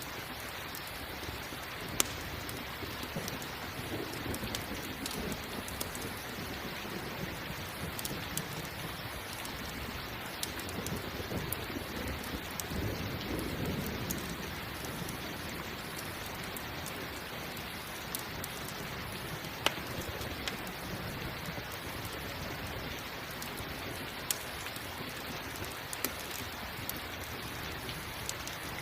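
Steady rain falling, with a low rumble of thunder swelling about halfway through and a few sharp isolated pops.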